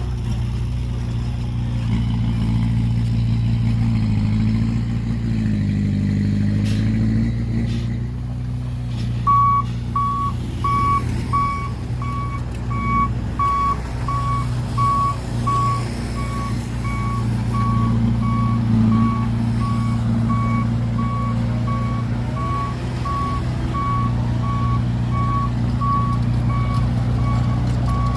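Diesel engine of heavy earthmoving machinery running, its pitch rising and falling a few seconds in. About nine seconds in, a reversing alarm starts and beeps steadily at an even pace.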